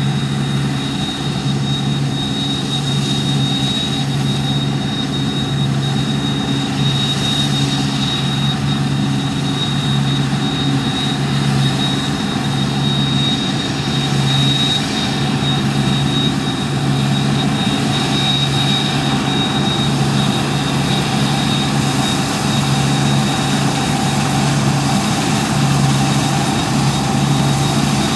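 Deutz-Fahr 6095 HTS combine harvester running steadily under load, its heavy engine drone mixed with a thin, steady high-pitched whine.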